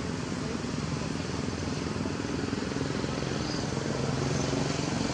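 A motor engine running steadily, a low hum over a steady hiss, growing slightly louder near the end.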